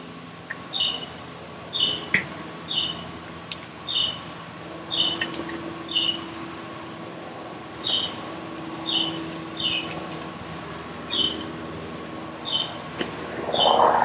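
Crickets and other insects chirping: a steady high trill with separate chirps repeating about once a second. A brief soft rush near the end.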